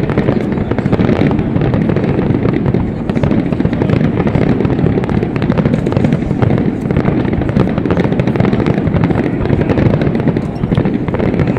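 Dense, continuous fireworks barrage: rapid overlapping bangs and crackles with a constant low rumble and no pauses between shots.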